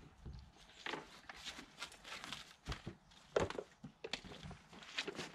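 Irregular knocks, clunks and scuffs of a 15 hp Parsun four-stroke outboard motor being lifted off a small boat's transom and handled, with the loudest knock about three and a half seconds in. Footsteps in the grass sound along with it.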